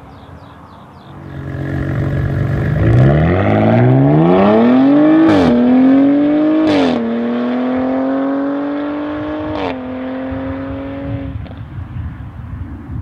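Audi B9 RS4's 2.9-litre twin-turbo V6 through a Milltek Sport non-resonated valved cat-back exhaust, accelerating hard at full throttle. The note climbs steadily and drops at each of three upshifts, with a sharp crack from the exhaust at each change. It then pulls on in a higher gear before fading away.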